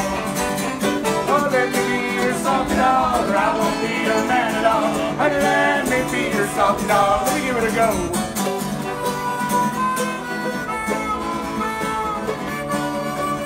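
Bluegrass band playing: fiddle, mandolin and strummed acoustic guitar, with voices singing over them in the first half. From about eight seconds in a harmonica carries the melody over the strings.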